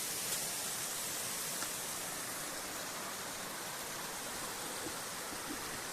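Steady rush of a waterfall: an even hiss of falling water, with a faint click or two.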